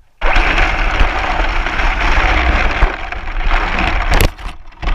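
Onboard sound from a camera mounted on a Traxxas RC car driving fast over grass: a loud, steady rushing and low rumble of wind, vibration and grass against the body. About four seconds in come a couple of sharp knocks as the car tips over and tumbles.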